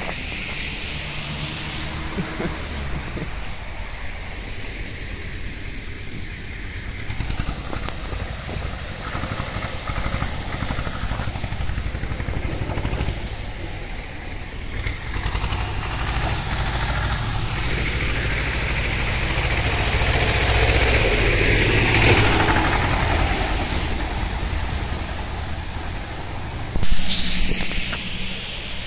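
Vehicles driving through deep floodwater: engine rumble and the rushing splash of water thrown up by the tyres. It swells as a vehicle passes about three quarters of the way through, with a sudden loud burst of noise near the end.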